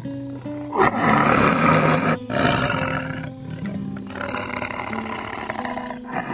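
Tiger roaring and growling over background music: loud roars start about a second in and break off briefly, then lower, quieter growling follows.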